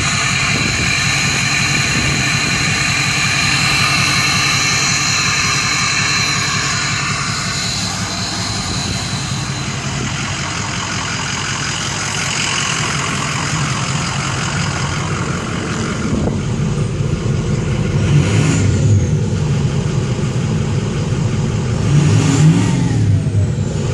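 A 2004 Ford F-450's 6.0 L Power Stroke V8 turbodiesel running at idle, with a high-pitched turbo whine that fades about a third of the way in. Near the end the engine is revved a couple of times, rising and falling in pitch.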